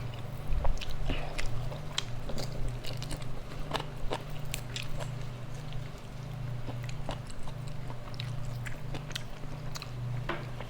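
A person chewing and biting food close to the microphone, with irregular small clicks and crunches, over a steady low hum.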